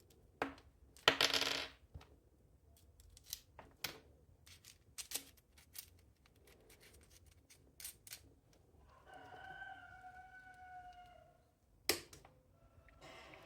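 Scattered small clicks and light metallic knocks from soldering irons and bench parts being handled, with a short rustle about a second in. Toward the end, a rooster crows once in the background, a pitched call of about two seconds.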